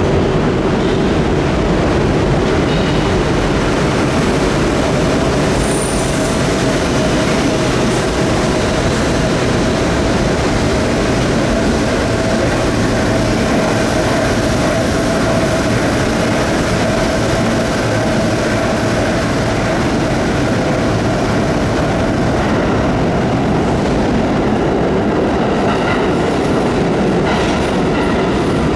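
Vintage BMT Standard, D-type and BU gate-car museum train running through an underground subway station: a steady loud rumble of steel wheels on rail, with a sustained wheel squeal through the middle stretch as the last cars pass and pull away.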